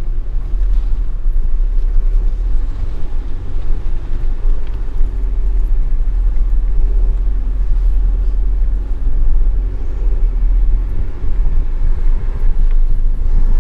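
Cabin noise of an SUV driving along a dirt farm track with a side window open: steady low engine and road rumble.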